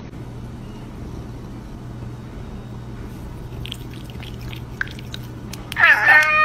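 A cat licking at a treat, with faint wet licking clicks over a steady low hum. About six seconds in, it lets out a loud, drawn-out meow.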